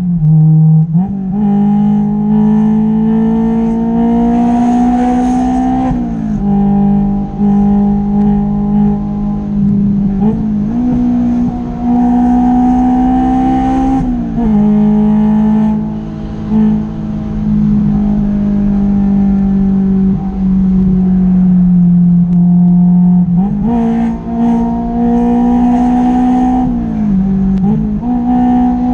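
Honda S2000's four-cylinder engine pulling through the gears, heard from inside the open-top cabin with wind noise. Its pitch climbs steadily and then drops suddenly at each upshift, about six times, with a longer stretch of steady cruising in the middle.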